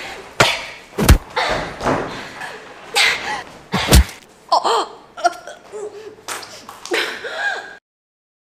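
Fight-glove punches landing with sharp smacks, about four in the first four seconds, amid a woman's pained grunts and cries. The sound cuts off suddenly near the end.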